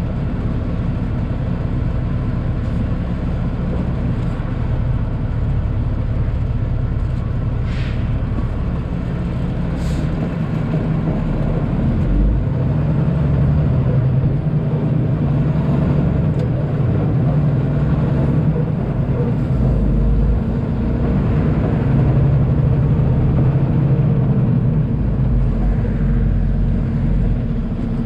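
Semi truck's diesel engine running and road noise while driving, heard from inside the cab: a steady low drone that gets a little louder about halfway through.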